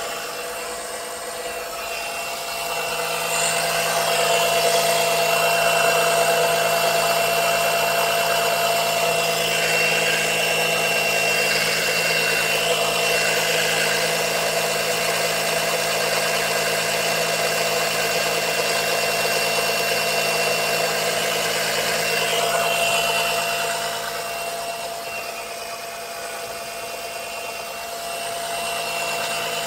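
Small oil suction pump's motor running steadily, with a steady whine. It gets louder a few seconds in and eases off again near the end.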